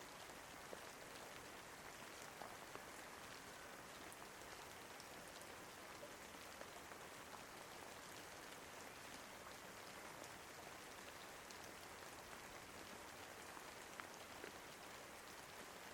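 Faint, steady rain: an even hiss with scattered small drop ticks.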